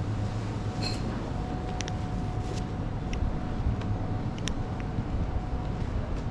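Steady low rumble of background noise with a faint steady hum and a few scattered light clicks.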